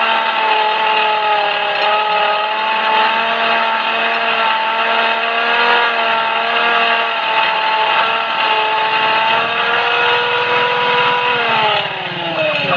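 Homemade belt-driven electric grinder running with a steady whine while a small part is held against its grinding wheel. The pitch wavers a little under the load, and about a second before the end the motor is switched off and the whine falls as it spins down.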